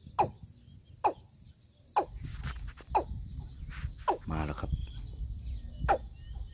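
Watercock calling: a sharp note falling steeply in pitch, repeated about once a second, with a wavering call about four seconds in, over a low rustle.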